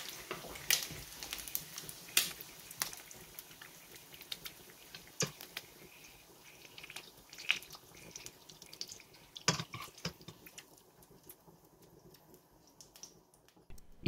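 Fatty bacon rendering in a frying pan, the hot fat crackling with scattered sharp pops that thin out near the end.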